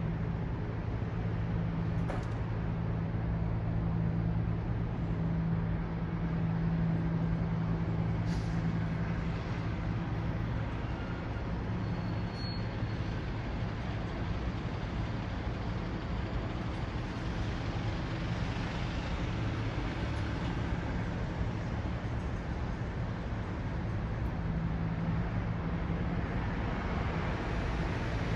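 Urban road traffic noise with a steady low engine hum that grows louder and softer, as from a large vehicle running close by.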